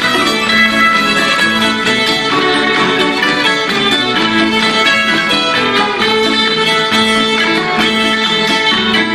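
A fiddle playing a lively traditional dance tune, with acoustic guitar strumming the accompaniment.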